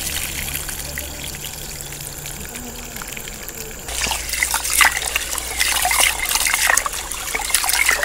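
Rice-rinsing water: cloudy rinse water trickles steadily out of a tilted pot over a hand, then about halfway through there is louder splashing and sloshing as a hand scrubs the wet rice grains in the pot while fresh water pours in.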